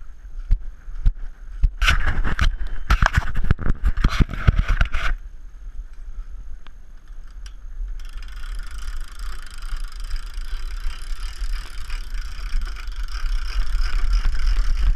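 A metal boat trailer rattling and clanking over a rough slipway as it is towed, loudest in a burst of clatter a couple of seconds in. Wind buffets the microphone throughout, and about halfway through the sound switches abruptly to a steady hiss of wind and water.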